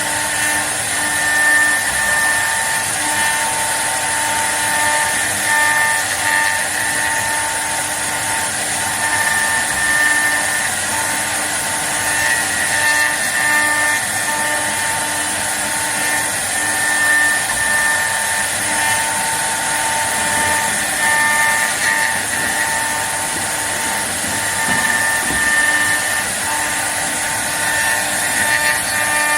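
Model 1313 CNC wood lathe running and turning a workpiece: a steady motor whine with tones that come and go, over the hiss of cutting.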